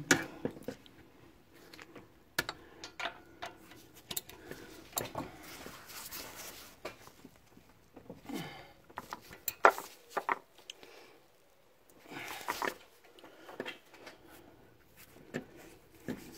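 Irregular metallic clicks, clinks and scrapes of a hand ratchet and a socket on a long extension bar working at an exhaust bolt.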